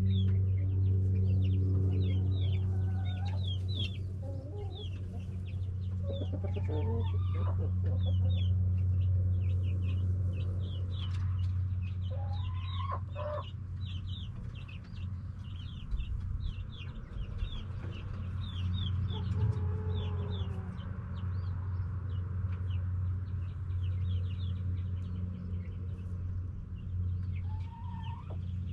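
Backyard hens clucking, with a few drawn-out calls that rise and fall in pitch, over many quick high chirps and a steady low hum.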